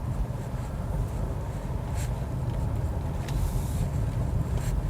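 Steady low rumble of a car driving on the road, engine and tyre noise heard from inside the cabin, with a few faint ticks.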